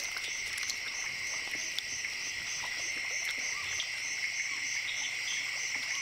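Steady wetland insect chorus: a constant high drone under a higher pulsing call that repeats about three times a second, with a few faint ticks.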